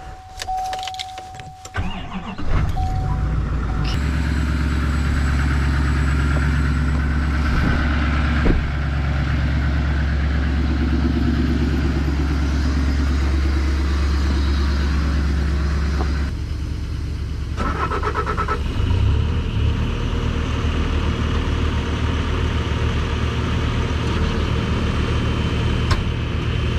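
Diesel engine started after its glow plugs pre-heat: a steady warning beep, then the starter cranks about two seconds in and the engine catches about four seconds in. It then runs steadily, with a change in its note in the second half and a steady high whine on top.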